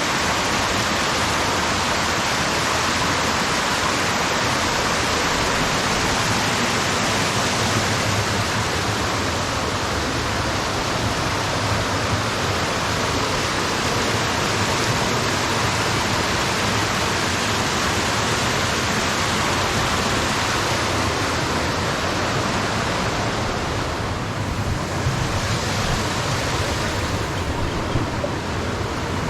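Steady rushing of a small waterfall cascading over rock ledges, its sound shifting briefly near the end.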